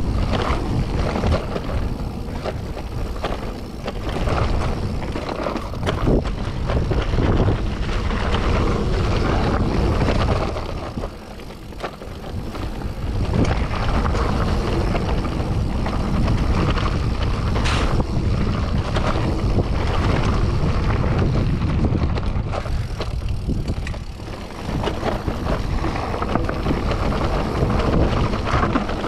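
Mountain bike riding down a wet trail: wind rushing over the microphone, tyres on wet rock and gravel, and the bike rattling and knocking over bumps. The noise drops away briefly twice, as the bike slows.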